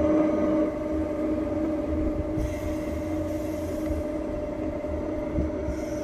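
Recorded ICE 3 high-speed train sound played from a small Bluetooth speaker inside an LGB model train car: a steady electric drive hum over a low rumble, with a burst of hiss about halfway through.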